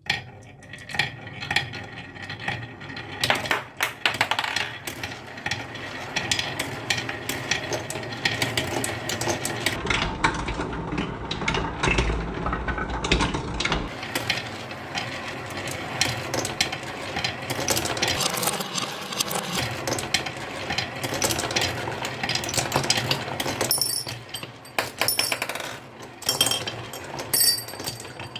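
Many marbles rolling and clattering down a toy marble run track, a dense stream of clicks and rattles that starts suddenly. Partway through, a low rumble joins for a few seconds.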